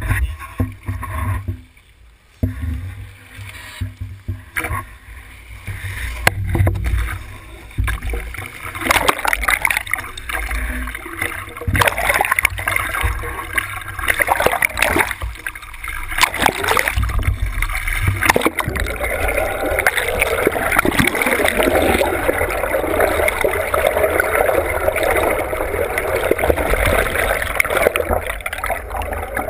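Rough sea water splashing and sloshing over a camera held at the surface, with a deep wind rumble; it comes in choppy surges at first. About two-thirds in it settles into a steady rushing, gurgling wash as the camera goes under the water.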